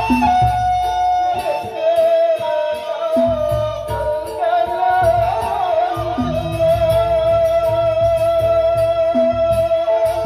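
Traditional Sasak gamelan music from Lombok: a man singing a slow, mournful melody into a microphone, doubled by a bamboo suling flute. He holds long notes over low, repeated drum beats.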